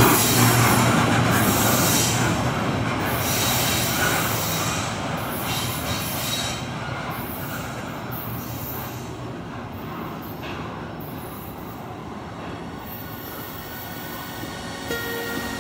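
A double-stack intermodal container freight train rolling by on steel rails. Its noise fades steadily as the cars move off down the line. Music comes in near the end.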